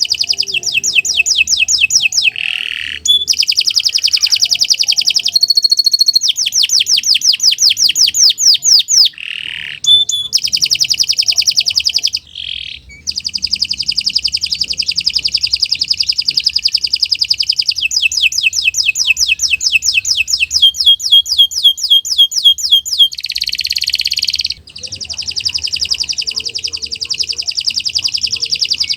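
Domestic canary singing a long, loud song in full voice: fast trills and rapid runs of repeated notes, broken only by a few short pauses.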